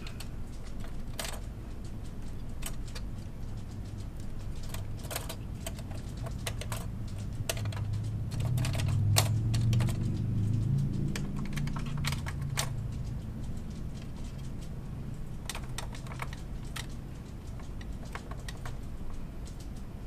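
Scattered sharp clicks and taps of metal and plastic from the LGA 1366 processor sockets of an HP Z800 workstation, as retention levers and load plates are released and the Xeon processors are lifted out. Underneath runs a steady low air-conditioner hum, and a low rumble swells about eight seconds in and fades by about twelve.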